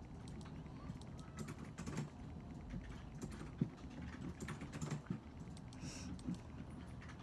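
Faint, irregular clicking of keyboard typing over a low, steady room hum.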